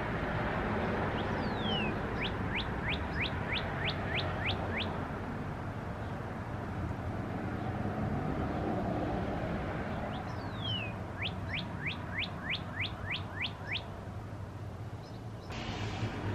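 A songbird singing the same phrase twice, about nine seconds apart. Each phrase is one falling whistle followed by about eight quick down-slurred notes, roughly three a second.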